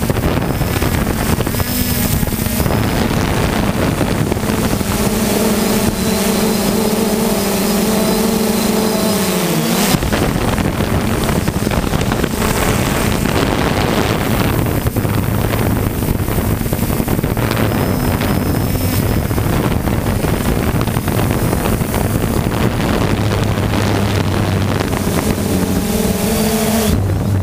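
3DR Solo quadcopter's electric motors and propellers whirring steadily, with a hum that shifts in pitch as the drone manoeuvres and drops about ten seconds in. Wind rushes over the microphone throughout.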